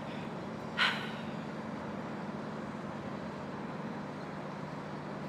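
Steady low outdoor hum of distant traffic, with one short sharp breath sound about a second in.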